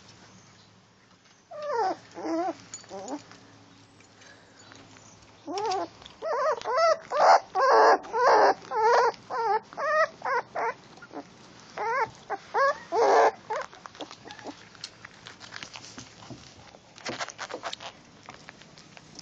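Cheagle (Chihuahua–beagle cross) puppy whimpering and yelping: high cries that rise and fall in pitch, a short burst then a long run of about two a second, followed by faint scratchy clicks near the end.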